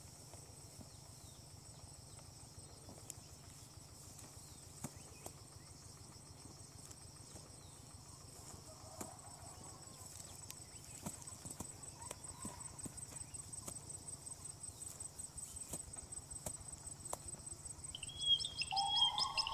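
Faint steady high-pitched chirring of insects in a rice field, with a few soft clicks. Sliding music tones fade in near the end.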